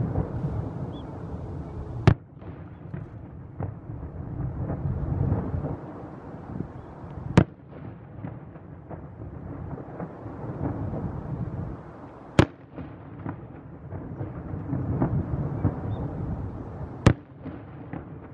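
Daytime salute fireworks going off one at a time in a 21-shot royal salute: four sharp bangs about five seconds apart, over steady background noise.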